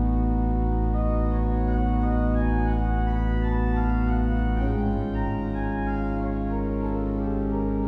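Background music: sustained organ-like keyboard chords held steady, moving to a new chord about five seconds in.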